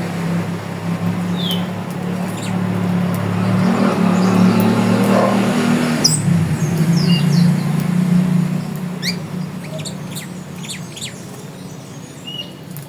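Birds chirping: short high chirps and quick rising and falling notes scattered through, more of them in the second half, over a loud steady low hum.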